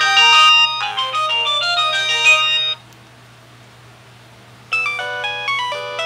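Nokia 6030 mobile phone playing a polyphonic ringtone melody through its small loudspeaker. The tune cuts off abruptly about three seconds in, leaving a faint hiss and low hum, and about two seconds later another ringtone melody begins.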